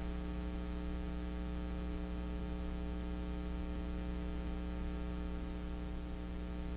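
Steady electrical mains hum from the recording chain: an unchanging buzz with a stack of evenly spaced overtones and nothing else.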